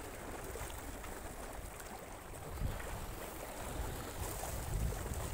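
Steady low rumble of wind noise on the microphone, with one soft knock about two and a half seconds in.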